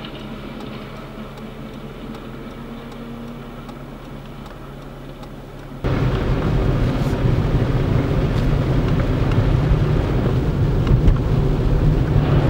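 Traffic on a snow-covered highway: at first a quieter, steady vehicle hum, then an abrupt jump about six seconds in to a much louder rumble and hiss of vehicles passing through blowing snow.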